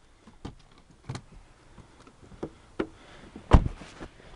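Scattered knocks and clicks, with one heavy thump about three and a half seconds in.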